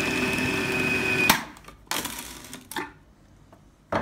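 Electric food processor motor running steadily with a high whine as it blends frozen apricot pieces and cream, then switched off about a second in. A few plastic knocks and clicks follow as the bowl's lid is taken off, the sharpest near the end.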